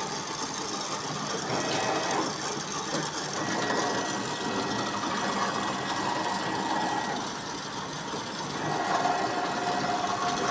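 Sewing machine running steadily with no fabric, being warmed up before sewing.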